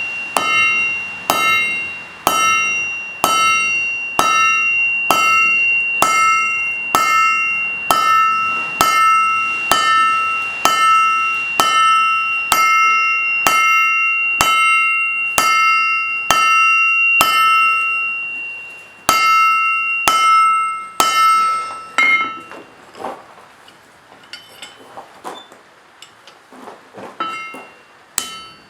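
Blacksmith's hand hammer striking steel on an anvil, about one blow a second, each blow leaving a ringing tone that carries on into the next. Some twenty seconds in the steady hammering stops and only lighter, scattered taps follow.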